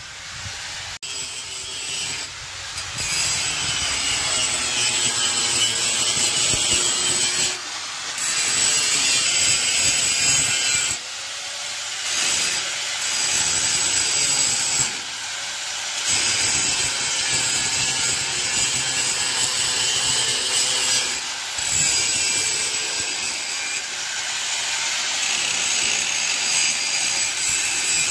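Abrasive rasping and rubbing on a metal brake part clamped in a vise. It runs steadily with a few short breaks.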